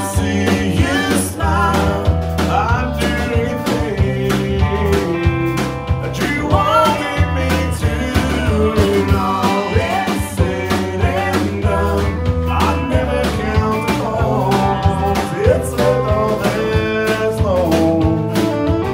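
Live country band playing: a strummed acoustic guitar and a bowed fiddle with sliding notes over a steady bass and beat, with a male voice singing.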